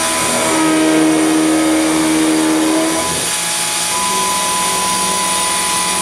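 Converted Harbor Freight benchtop mini-mill cutting aluminum with an end mill: the spindle and the cut ring with pitched tones that change a few times as the tool moves, over the steady hiss of a compressed-air nozzle blowing chips off the cutter.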